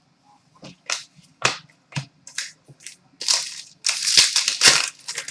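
Trading cards being handled and slid past one another: a run of short, irregular swishes and flicks, more frequent and longer in the second half.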